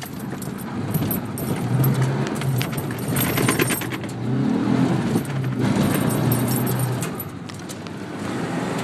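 Ford Ranger's 3.0-litre Vulcan V6 heard from inside the cab, revving hard as the truck is powered through a turn on loose dirt, easing off briefly about four seconds in and dropping back near the end. Light rattling and jangling in the cab over the bumps.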